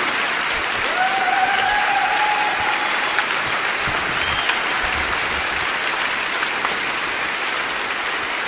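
Steady hiss of blizzard wind and blowing snow, with a faint thin whistle-like tone running for about two seconds, starting a second in.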